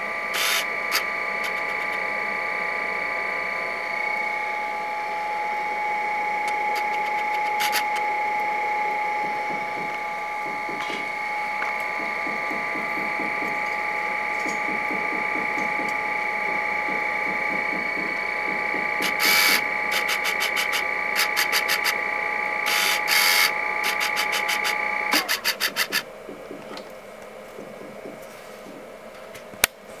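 Steady whine of a small machine with several pitches at once, cutting off with a slight drop in pitch about 25 seconds in. Scattered sharp clicks run through it, with quick runs of clicks in the few seconds before it stops.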